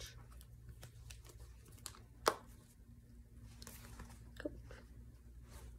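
Light rustling and handling noises, with one sharp click a little over two seconds in.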